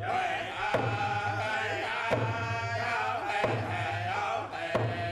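Men singing a traditional Indigenous song in unison while beating hand-held frame drums. A hard drum stroke with a low ringing boom lands a little over a second apart, four times.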